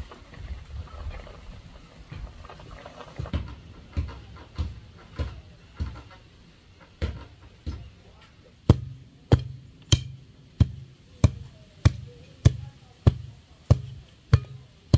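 Evenly spaced pounding blows, roughly one every 0.6 seconds, each a sharp knock over a dull thud, from work on a wooden post set in soil. The blows grow much louder about nine seconds in. A low rumble runs under the first few seconds.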